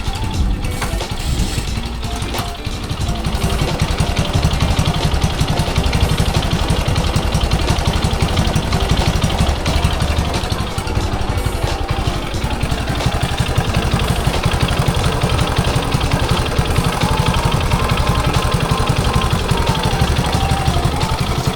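Honda Super Cub's small single-cylinder four-stroke engine running steadily under way, a continuous low pulsing rumble with broad road and wind noise over it.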